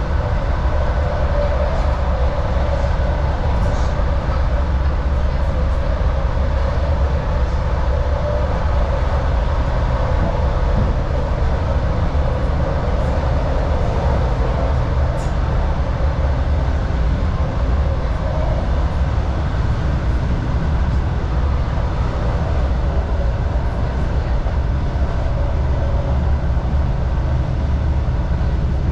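Suburban electric train running, heard from inside the carriage: a steady low rumble of wheels and traction motors with a faint hum above it.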